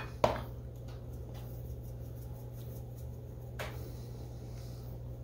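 A plastic shaker is set down on a granite countertop with one sharp knock, and a lighter click follows about three and a half seconds later. A steady low hum runs underneath.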